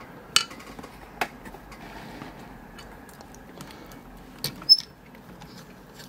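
Scattered small clicks and light knocks of the opened brass padlock and picking tools being handled and worked out of a plastic holding jig. The loudest is a sharp click with a brief high metallic ring about four and a half seconds in.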